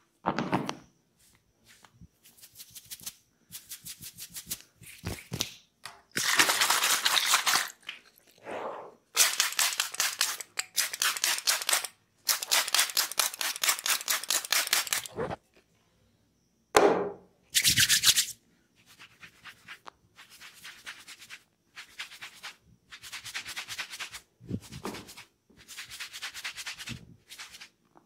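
Close-up head-massage sounds: a string of separate crackling, hissing bursts, each a second or more long, from hands working through long hair and a trigger spray bottle misting water onto it near the middle, with quieter rubbing between.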